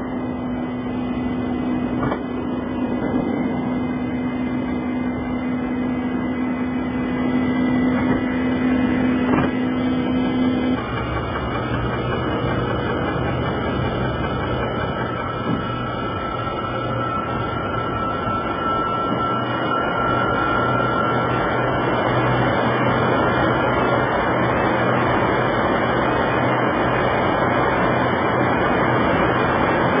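Aircraft engines and airflow heard from inside the cockpit, a steady rush with an engine drone. About ten seconds in the drone changes, dropping to a lower hum with a faint high whine above it.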